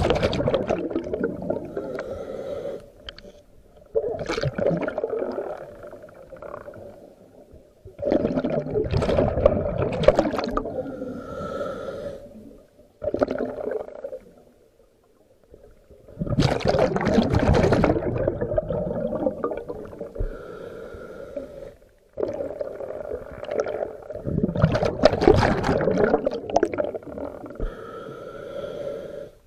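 A scuba diver breathing through a regulator underwater. Each exhale sends out a gurgling burst of bubbles lasting a few seconds, about every four to five seconds, with a fainter hiss between the bursts.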